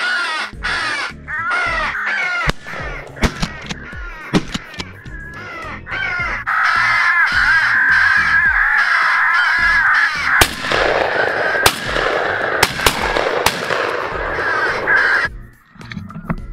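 Crows cawing in quick repeated caws, swelling about six seconds in into a dense chorus of many overlapping caws that cuts off suddenly near the end. A few sharp clicks are scattered through.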